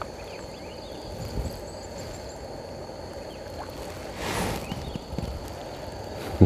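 Kayak paddling on a river: a steady outdoor water wash with a couple of low knocks about a second and a half in, and one paddle splash swelling about four seconds in.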